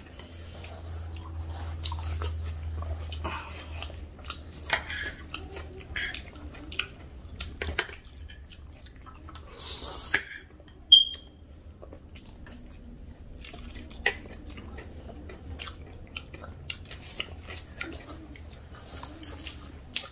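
Close-up mouth sounds of chewing and crunching crisp chatpate and fried onion pakoda, in irregular crunches, with scattered clinks of a spoon on a dish. There is one brief ringing clink about eleven seconds in.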